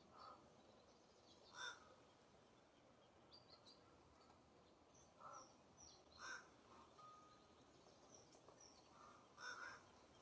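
Outdoor birds calling: five short, harsh calls spaced a second to a few seconds apart, with a few faint, thin high chirps in between.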